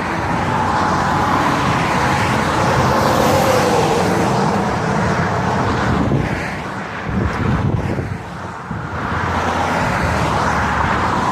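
Road traffic noise: vehicles passing steadily, easing off briefly about seven to nine seconds in.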